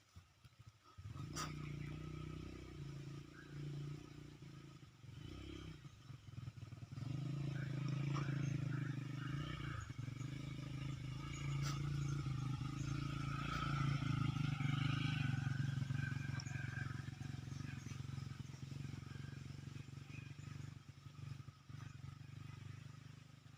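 An engine running steadily, starting about a second in, growing louder through the middle and easing off toward the end.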